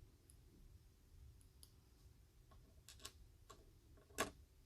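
Faint, sparse clicks of small metal lock parts as a slider is worked out of a disassembled EVVA 3KS lock, with a sharper click near the end.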